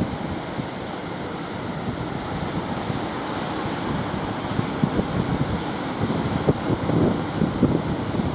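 Surf breaking and washing on a sandy beach, with wind gusting on the microphone.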